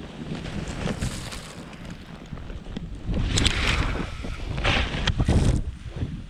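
Snowboard slashing through deep powder snow, with a steady rush of wind over the GoPro's microphone. Two louder surges of snow spray come in the second half.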